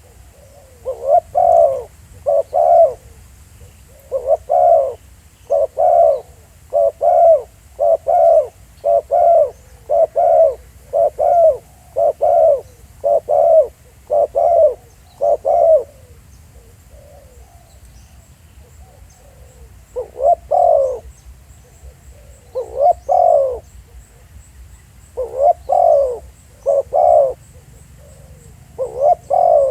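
Spotted dove cooing: a quick series of short, loud coos, then after a pause of a few seconds past the middle, coos in more spaced-out groups.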